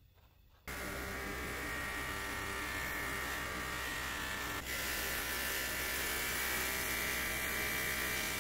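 Electric buffing wheel running while the kerosene stove's perforated metal burner cap is held against it for polishing: a steady motor hum with a hissing, buzzing rub. It starts abruptly about a second in, with a brief dip just past halfway.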